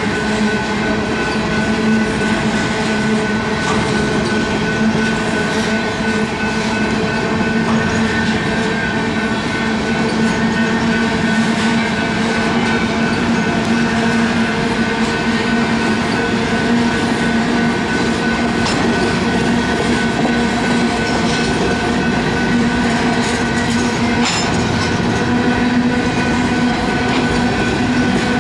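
BNSF grain train of covered hopper cars rolling past at steady speed: continuous rumble and clatter of steel wheels on rail, with a steady whine held over it.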